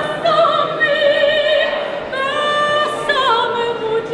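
A woman singing in operatic style: long held notes, then a falling phrase about three seconds in that carries a wide vibrato.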